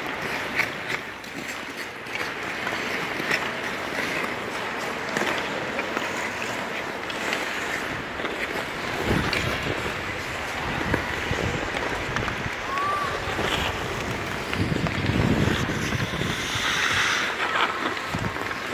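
Ice skate blades scraping and carving across a bandy rink, with scattered sharp clicks of bandy sticks striking balls. Deep rumbles of wind noise on the microphone come in about halfway and again about three-quarters through.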